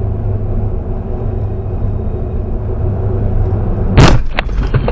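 Road noise inside a moving car, a loud steady low rumble, then about four seconds in a sudden loud crash as the car is rear-ended, followed by rattling and clatter.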